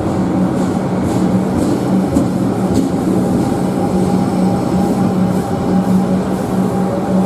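A train running past on the track: a loud, steady rumble with a constant low hum, and a higher tone joining about four seconds in.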